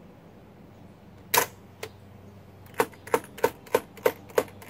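Keys of an early-1920s Marchant EA mechanical calculator being pressed by hand: one loud clack about a second and a half in, a lighter click, then a quick, even run of key clicks, about three a second.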